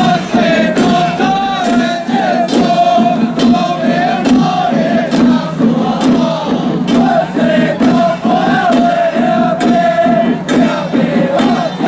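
Taiwanese temple procession music: a wavering melody over a steady low drone, with sharp cymbal or gong strikes recurring about every half second.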